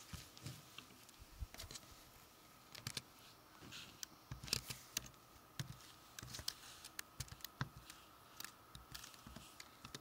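Scattered light clicks, taps and rustles of small things being handled, irregular and busiest about halfway through, over a faint steady high-pitched hum.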